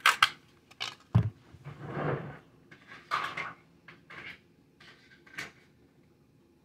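Kitchen handling sounds: a peanut butter jar opened and put down on the countertop with a thump about a second in, then scattered knocks and clatter of utensils as a kitchen drawer is searched.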